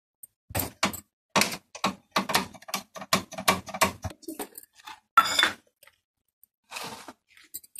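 A rapid, irregular run of clicks and metallic clinks as cookware is handled on a gas stove, followed by a couple of brief rustles near the end.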